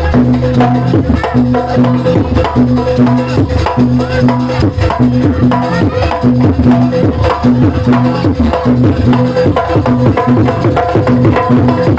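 Live jaranan accompaniment music: hand drums (kendang) struck in a fast, steady rhythm over repeating pitched gong-chime notes.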